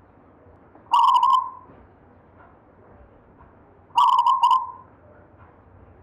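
Zebra dove (perkutut) cooing twice, about three seconds apart; each call is a quick run of short notes over a held tone that trails off.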